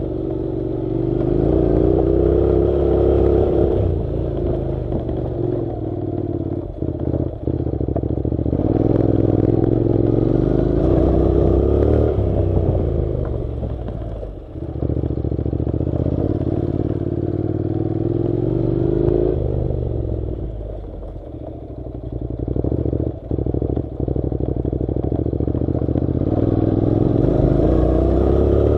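Honda NC700's parallel-twin engine running on a dirt track, its pitch rising under throttle and falling back several times as the rider eases off, with a few short knocks and rattles from the rough ground.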